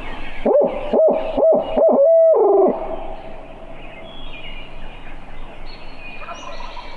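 Barred owl hooting, given as a turkey hunter's locator call to make a roosted gobbler gobble. It is loud and close: four short hoots, then a longer last note that drops in pitch, over about two seconds.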